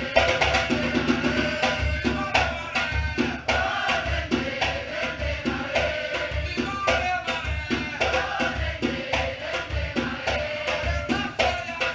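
Batucada samba percussion ensemble playing: deep surdo bass drums keep a steady pulse under dense snare and higher drum hits, with voices singing over the rhythm.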